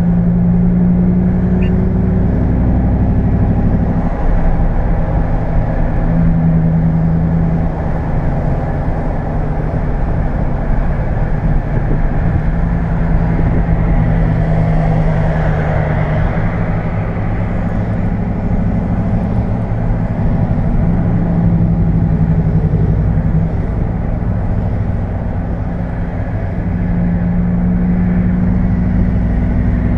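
Ram 1500 pickup driving, with a steady low engine drone that shifts slightly in pitch over road noise.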